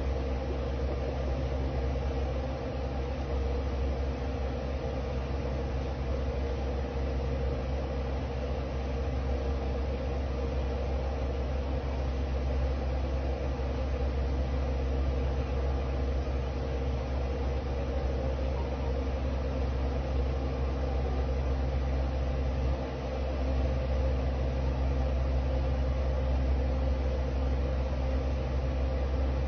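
A steady low mechanical hum with a few even tones in it, unchanging throughout.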